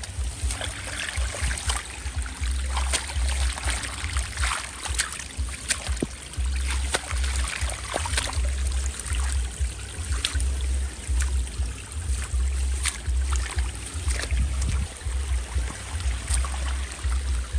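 Water trickling and splashing, with many small sharp drips and splashes and a fluctuating low rumble on the microphone.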